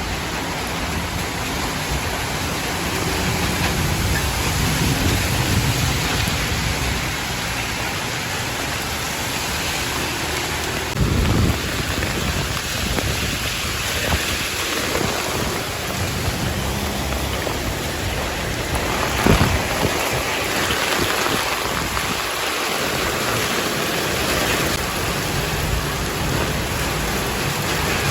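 Heavy rain pouring steadily, with a low rumble about eleven seconds in and a short sharp sound about nineteen seconds in.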